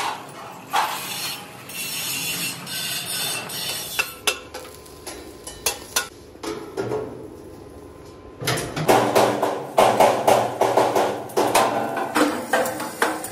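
Metal clanking and hammer blows on a steel frame: scattered single knocks at first, then a louder run of quick, irregular strikes starting about two-thirds of the way in.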